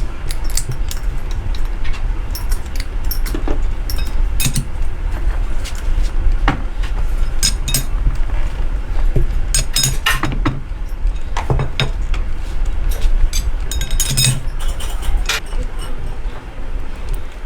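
Workshop noise: a steady low machine hum with irregular clinks and knocks.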